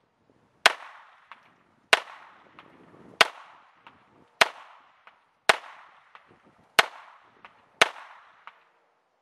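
Seven shots from a Smith & Wesson 22A1 semi-automatic .22 LR pistol, fired one at a time at an even pace of a little over a second apart. Each sharp crack is followed by a short decay and a fainter tick about half a second later.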